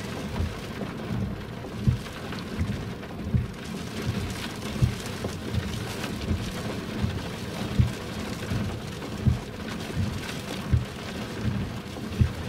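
Hurricane wind buffeting the microphone in low, irregular thumps about once a second, over a steady wash of rain and breaking surf.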